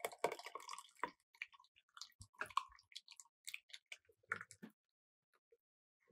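Liquid mixture pouring through a fine mesh sieve into a glass measuring jug. The stream ends about a second in, followed by scattered drips and small splashes from the sieve that stop a little before five seconds.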